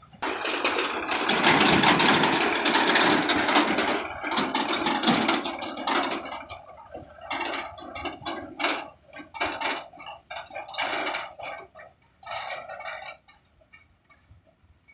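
Diesel tractor running and its steel tipping trailer rattling as it drives along a rough dirt track. The sound is loudest over the first few seconds, then breaks into irregular bursts that fade out near the end.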